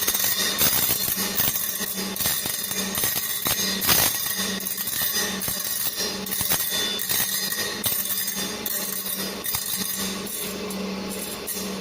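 GD 450Q circular sawblade grinder running, its grinding wheel working on the saw blade's teeth: a steady hum under a grinding hiss that swells and fades in a regular pulse about once or twice a second.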